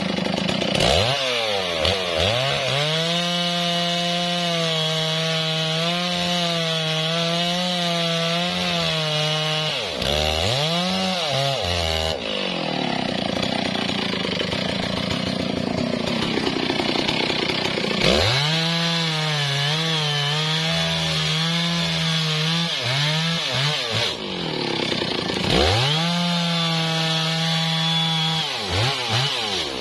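Stihl MS660 two-stroke chainsaw cutting through a teak log: the engine revs up and holds full throttle under load in three long cuts, about 1 to 10 seconds in, 18 to 24 seconds in, and from about 25 seconds to near the end. Between the cuts it drops back, with one short rev about ten seconds in.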